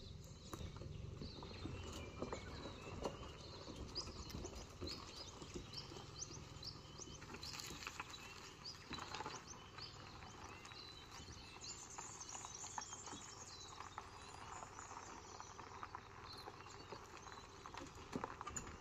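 An SUV towing a kayak trailer pulls slowly away over gravel, its faint engine and tyre crunch dying away over the first several seconds. Small birds chirp in the bush throughout.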